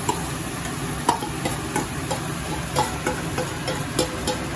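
Spoon knocking against a pan several times over a steady sizzle of potatoes, onions and peas frying, as poha is added and stirred in.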